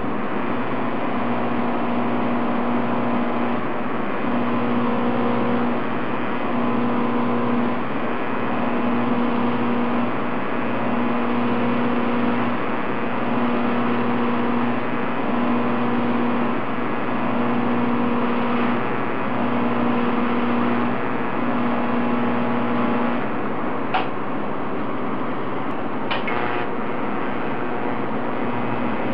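TIG welding on a 304 stainless-steel pipe manifold: a steady buzzing hiss of the arc and welder, with a low hum that comes on and off about every second and a half until a few seconds before the end. Two faint clicks near the end.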